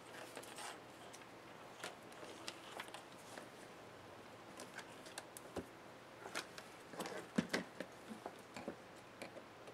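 Light scattered clicks and taps of hands handling a laptop's display back cover, pulling its thin wireless antenna cables free and moving the metal hinges, with a louder cluster of clicks about seven seconds in.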